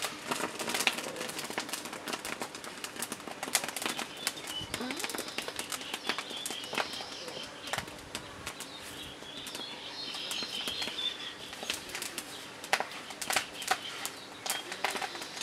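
Irregular sharp crackles and clicks throughout, with short bursts of bird chirping about five seconds in and again about ten seconds in.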